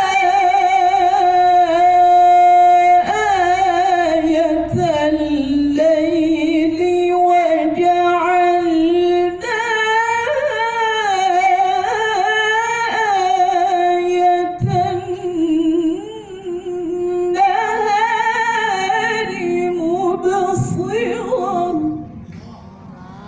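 A woman recites the Quran in the melodic tilawah style, amplified through a microphone. She sings long held phrases with winding ornaments, breaking between them, and her voice stops about 22 seconds in.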